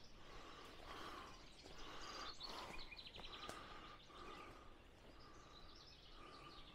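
Faint outdoor ambience with birds calling: a short call repeated steadily about every two-thirds of a second, and a brief rapid chirping trill near the middle.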